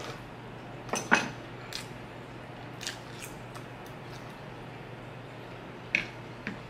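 Steel knife and fork cutting steak on a wooden cutting board: a few separate sharp clicks and scrapes of cutlery, the loudest about a second in.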